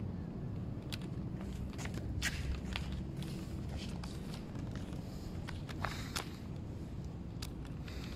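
Footsteps on a concrete floor, irregular scattered steps over a steady low rumble.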